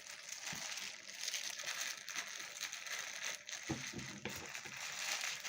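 Plastic bags crinkling and rustling as they are handled and unwrapped, an irregular crackly rustle.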